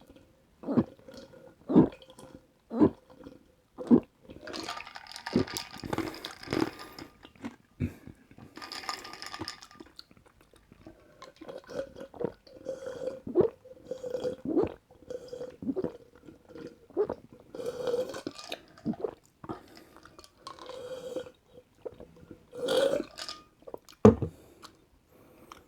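Close-miked mouth sounds of drinking a mandarin juice drink: a run of gulps about once a second, then longer noisy sips and more irregular swallows. A sharp click near the end.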